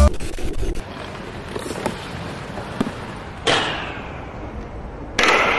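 Inline skate wheels rolling on pavement. About three and a half seconds in there is a sudden hit of the skates on the railing ledge that fades over a second or so, and another hard hit comes near the end.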